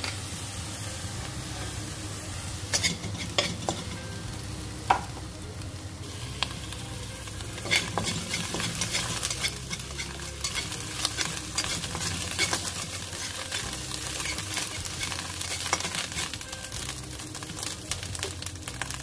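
Minced garlic frying in oil in a wok, stirred with a spatula that taps and scrapes against the pan. A few sharp clicks come in the first eight seconds, then the sizzling turns into a dense, steady crackle.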